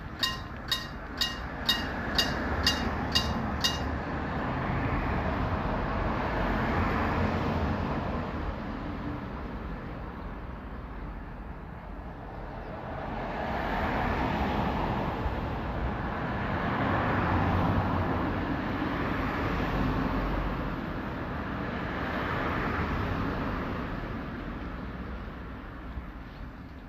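Electric-bell railway crossing alarm striking eight times, about two strikes a second, then stopping about four seconds in. After it, a rushing noise swells and fades several times.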